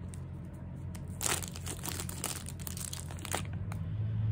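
Plastic vape packaging crinkling and crackling as it is handled and pulled open, with a couple of sharper crackles, over a steady low hum.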